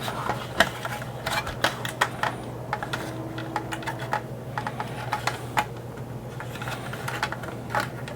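Irregular light clicks and taps of the hard plastic parts of a 1983 G.I. Joe Skystriker toy jet being worked apart with a small screwdriver, over a steady low hum.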